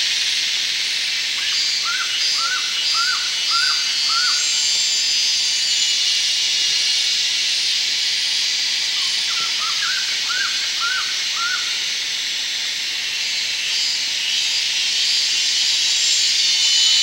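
Steady, high-pitched drone of jungle insects. Over it an animal gives two runs of short, upward-flicking calls, about two a second: one near the start and one around the middle.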